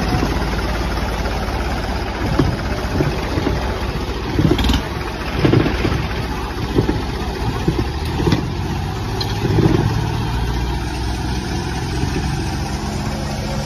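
Tractor diesel engines, a New Holland 3630 and a John Deere 5210, running hard under load while chained together in a tug-of-war. The engine sound is continuous, with several brief louder surges in the first ten seconds.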